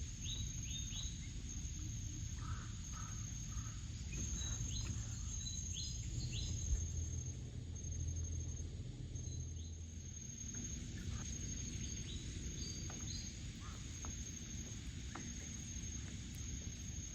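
Outdoor ambience: insects trilling steadily in a high, pulsing drone, with short bird chirps here and there over a low rumble.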